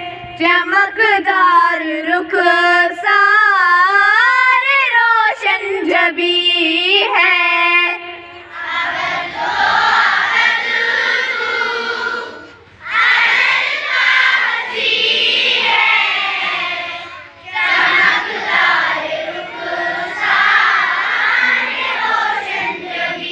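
A single voice sings a line alone for about eight seconds, then a large group of children sing together in unison, an assembly song.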